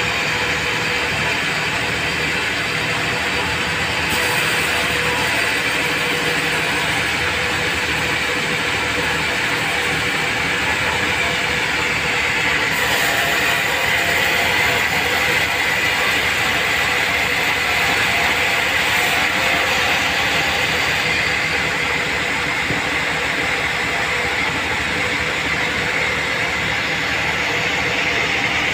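Vertical band sawmill running steadily, its blade sawing a mahogany log into planks, a continuous loud machine noise with a steady hum.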